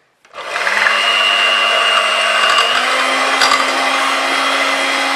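Electric hand mixer switched on, a fraction of a second in, its motor running steadily as the beaters whip warmed eggs, sugar and honey for a sponge cake. Its hum steps up slightly in pitch partway through.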